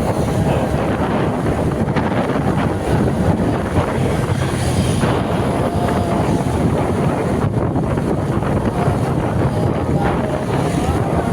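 Wind buffeting the microphone over a steady low rumble, with faint wavering tones in the background.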